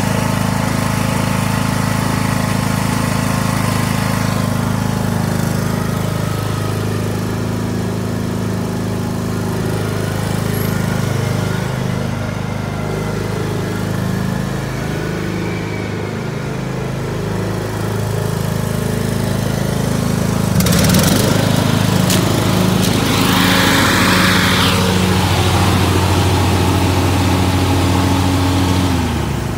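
John Deere E100 ride-on lawnmower's engine running steadily as the mower is driven. About two-thirds of the way through, a louder rushing noise joins it for a few seconds.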